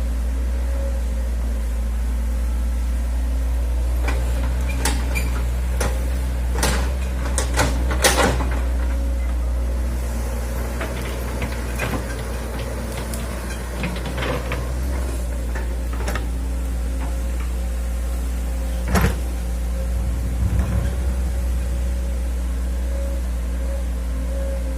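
Hitachi hydraulic excavator's diesel engine running steadily under working load, with scattered sharp metallic knocks and clanks from the bucket and arm. A run of clanks comes a few seconds in, more follow in the middle, and one loud knock lands near the end.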